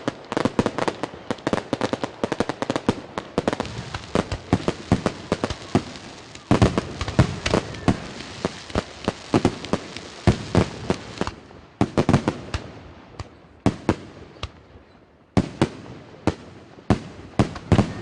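Fireworks display: rapid bangs of aerial shells bursting with crackling. The bangs come densely for about the first eleven seconds, then thin out to single bangs a second or two apart.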